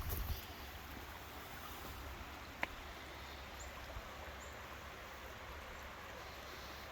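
Faint, steady outdoor background hiss with a low rumble underneath, and one sharp click about two and a half seconds in.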